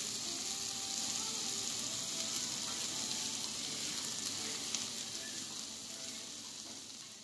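Sliced beef steak and bean sprouts sizzling on a hot cast-iron steak plate, a steady hiss that fades near the end.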